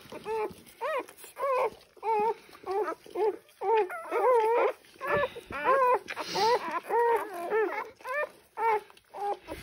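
Newborn puppies squeaking and whimpering as they root for their mother's teats: a quick run of short, high calls rising and falling in pitch, about three a second.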